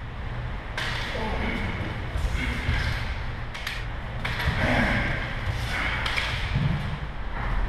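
Scuffling and thuds of close-quarters disarm practice, with a few sharp clicks a little past the middle. A steady low rumble and faint, indistinct voices run underneath.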